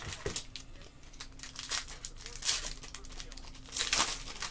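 Foil wrappers of Panini Contenders basketball card packs crinkling and tearing as they are pulled open by hand, with rustles throughout and the loudest rips at about two and a half and four seconds in.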